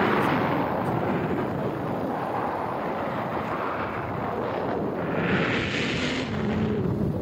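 Wind buffeting the microphone: a steady rumbling rush, with a louder, hissier gust about five seconds in.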